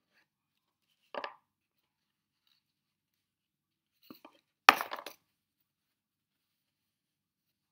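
A small cardboard gift box being opened and its paper and cloth contents handled: a brief rustle about a second in, then a few light clicks and a louder cluster of sharp taps and scrapes around five seconds in.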